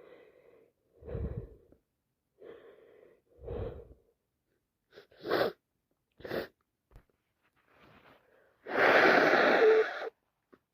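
A woman with a cold taking a few catching breaths, then sneezing sharply twice, then blowing her congested nose hard for just over a second near the end, the loudest sound here.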